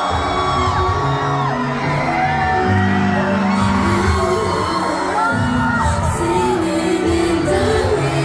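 Live pop song through a concert PA: a woman sings into a headset microphone over the backing track, and the audience whoops and cheers.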